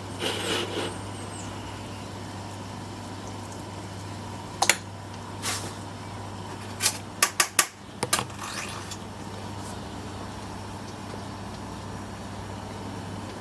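Metal lathe running with a steady low hum, with a handful of sharp metallic clicks and knocks in the middle, several in quick succession.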